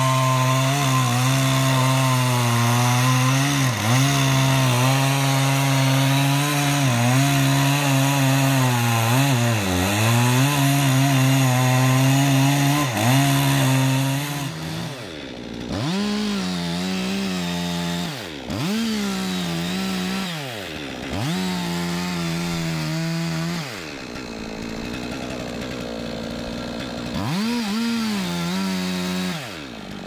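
Stihl MS 460 two-stroke chainsaw cutting into a jackfruit trunk at its base. For about the first half its engine holds a steady pitch under load, with brief dips. After that it is revved in short bursts that fall back between them, runs slower for a few seconds, then revs again near the end.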